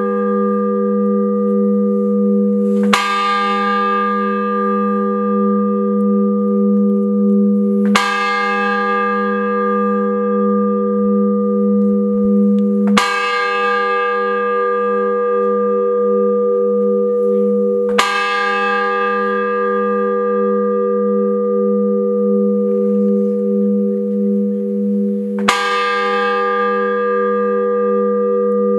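A single large bell tolling slowly, five strokes mostly about five seconds apart, each ringing on with a wavering hum into the next: a memorial toll.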